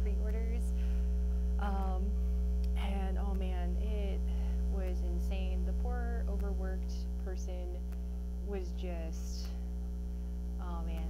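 Loud, steady low electrical mains hum from the recording audio equipment, a fault in the audio setup, with a voice talking over it.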